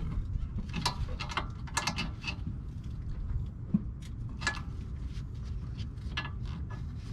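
Scattered metallic clicks and taps of a hand wrench fitted to and worked on the bolt at the end of a car's rear lower suspension arm, over a steady low hum.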